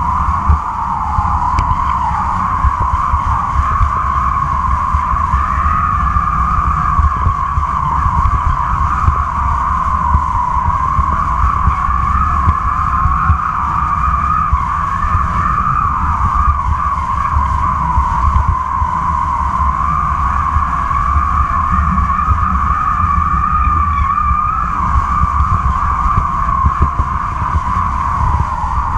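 Kite line humming in the wind: a steady whine that wavers slightly in pitch, over low wind buffeting on a microphone mounted on the line.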